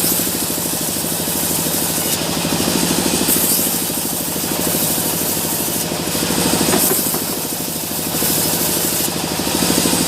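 Sawmill machinery running: an engine keeps up a steady, fast chugging rhythm, with a higher hiss that swells and fades every few seconds.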